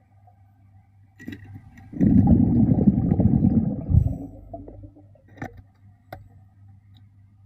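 A diver's exhaled breath bubbling out underwater, one long rumbling exhalation of about two seconds a couple of seconds in, between quieter stretches with a faint steady hum and a few clicks.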